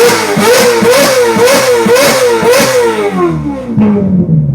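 Ferrari engine with an F1-style exhaust revved hard in quick blips, about two a second, each climbing and dropping back. Near the end the revs fall away in one long descending note.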